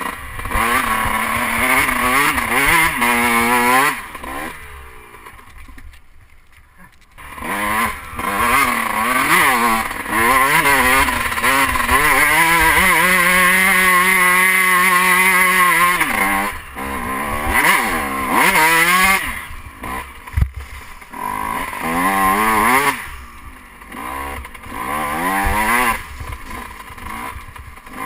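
Dirt bike engine revving up and down hard while climbing sandy hills. The throttle closes about five seconds in and the engine nearly falls away for a couple of seconds. A long steady high-rev pull follows around twelve to sixteen seconds in, then more rising and falling revs, with one sharp knock about twenty seconds in.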